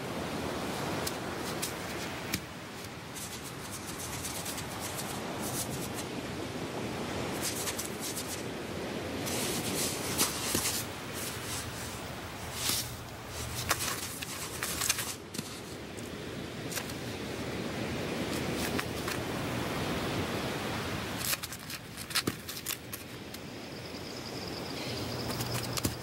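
Beach ambience: an even rushing noise with many irregular sharp clicks, scratches and rustles, the sound of wading birds pecking and scraping at sand. Near the end a thin high steady tone joins in.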